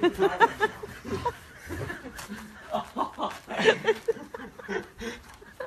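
A person laughing in short, repeated bursts.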